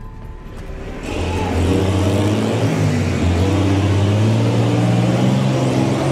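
A motor vehicle's engine accelerating: it swells up about a second in and keeps running loud and steady.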